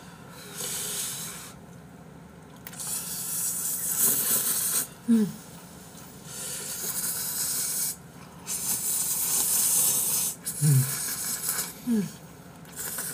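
Instant ramen noodles being slurped in long, noisy draws, one every second or two. A few short falling voice sounds fall between them.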